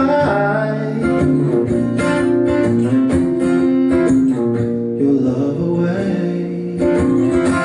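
Acoustic guitar strumming chords in a live song, an instrumental stretch between sung lines, growing fuller near the end.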